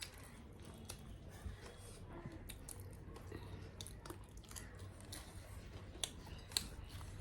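Close-up eating sounds: quiet chewing of food, with a few short sharp mouth clicks.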